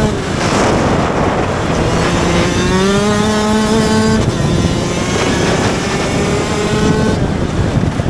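Rotax Max DD2 125 EVO two-stroke kart engine, heard onboard under racing load. The revs dip near the start, then climb steadily, drop sharply about four seconds in, and climb again.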